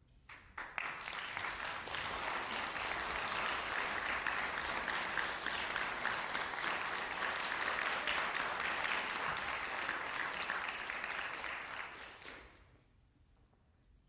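Audience applauding: a few scattered claps that swell into full applause within about two seconds, hold steady, then die away about twelve seconds in.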